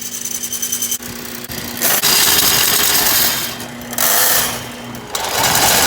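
Handheld electric power tool running in three loud bursts with a rapid rattle and a steady motor whine, stopping and starting between them and cutting off sharply at the end.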